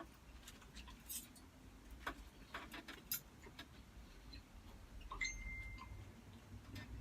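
Scattered light clicks and taps of cutlery against a plate during eating, irregularly spaced. There is a brief high-pitched squeak or tone about five seconds in.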